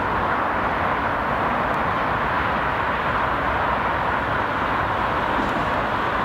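ED2T DC electric multiple unit approaching as it picks up speed from a stop: a steady rumble and hiss of its running gear blended with urban background noise, with no distinct clanks or horn.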